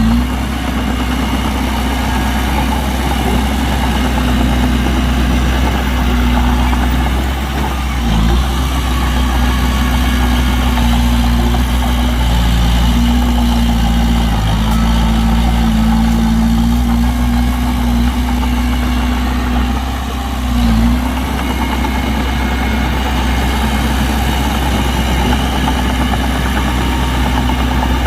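Heavy diesel engine of construction machinery running steadily near idle, with a low rumble; its pitch dips briefly twice.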